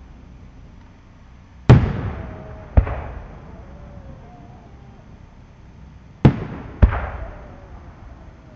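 Aerial fireworks shells bursting: four loud booms, in two pairs about a second apart, each trailing off in a fading rumble.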